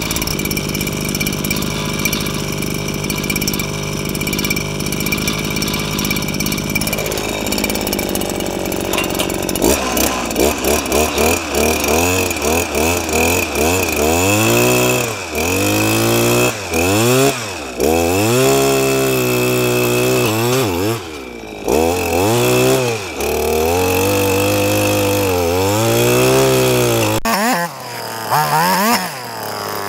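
Two-stroke engine of a gas-powered one-man post hole digger, idling steadily at first. From about ten seconds in it revs up and down over and over as the auger bores into the soil.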